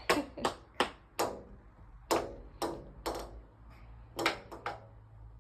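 A toddler's hand knocking on window glass: about ten sharp, irregular knocks, each with a brief ringing tail, coming in uneven clusters.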